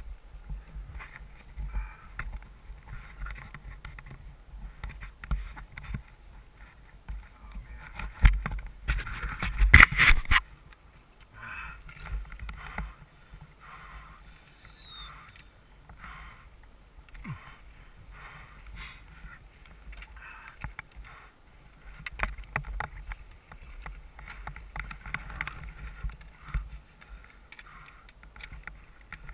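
Wind rumbling on a helmet-mounted camera's microphone, with scattered knocks and rustles as a mountain biker standing astride the bike shifts it and his gear; a louder burst of clatter and rush about nine to ten seconds in.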